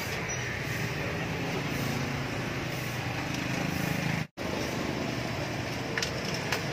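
Street traffic noise: motorbikes and cars running past, with a low engine hum that swells and fades. The sound drops out briefly about four seconds in, and a couple of light clicks come near the end.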